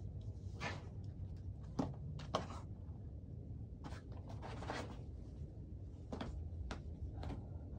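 A boulderer climbing a steep overhang: short forceful breaths as he pulls through moves, with sharp taps and scuffs of hands and climbing shoes on the rock between them. Under it all is a low steady rumble.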